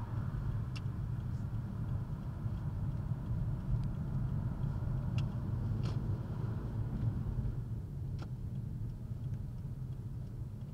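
Steady low rumble of a car driving, with a few faint clicks, growing slightly quieter near the end.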